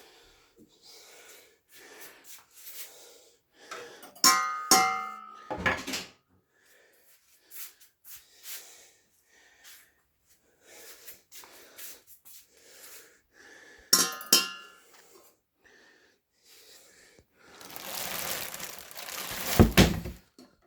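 Handling noises of a planetary mixer being unboxed: scattered rustles and knocks, with two bursts of metal clinking and ringing, a few seconds in and again about fourteen seconds in, as metal parts or accessories knock together. Near the end comes a longer rustle of packaging, then a couple of knocks.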